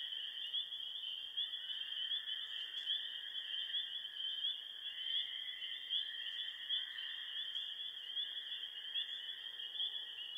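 Night-time chorus of chirping animals: a dense, steady high-pitched chirping, with fainter lower calls that drop in pitch every second or two.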